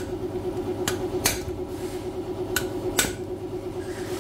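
Four sharp metal knocks, irregularly spaced, as a hammer and steel rod strike the cut-open steel muffler can of a TVS Apache RR 310 exhaust to knock its inner pipe loose and out. A steady low hum runs underneath.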